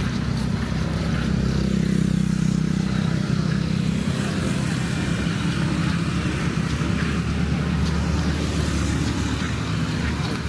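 Road traffic: motor vehicle engines running close by, loudest a couple of seconds in, with a lower engine hum later on, over steady street noise.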